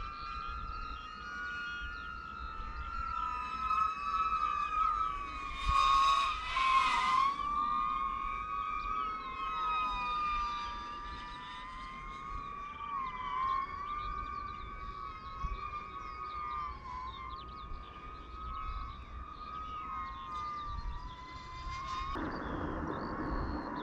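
DJI FPV drone's motors and propellers whining in flight, the pitch gliding up and down as the throttle changes. A short burst of rushing noise about six seconds in, and a steady hiss joins near the end.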